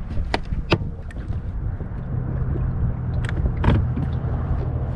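Low rumble of wind on the microphone on an open boat, broken by several sharp clicks and knocks, with a low steady hum coming in about two seconds in.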